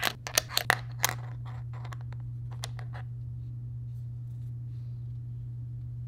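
Thin puzzle pieces clicking and tapping as they are handled and fitted into a puzzle tray: a quick run of clicks for about the first second, then a few faint ticks that die away. A steady low hum runs underneath.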